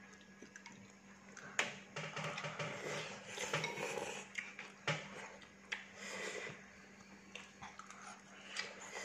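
Metal spoon clinking and scraping against a ceramic bowl of fried noodles, with sharp clinks about a second and a half in and near five seconds, and noises of the noodles being slurped between them. A faint steady hum runs underneath.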